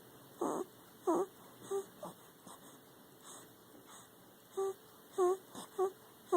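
A sleeping dog whimpering and making short breathy huffs while dreaming. The sounds come in short separate bursts, and several thin, high, bending whines cluster near the end.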